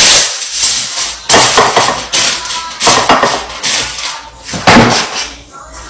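Aluminium foil being torn from its box and crumpled into a baking pan: loud crinkling rustles in several bursts.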